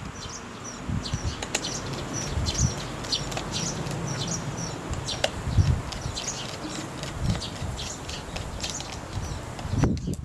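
Small birds chirping over and over in short high notes. Beneath them are low knocks and rustling from parts being handled and screwed together.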